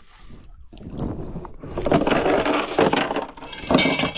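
Anchor rope and steel chain being hauled aboard a wooden boat, the chain clinking and rattling as it piles into the bow. The clatter builds from about a second in and stays busy to the end.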